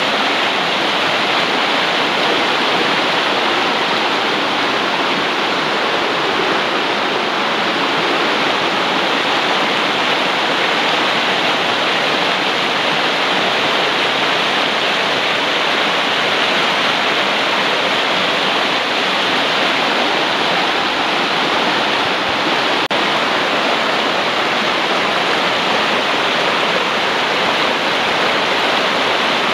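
Fast mountain torrent rushing over rocks and small cascades: a steady, even rush of water.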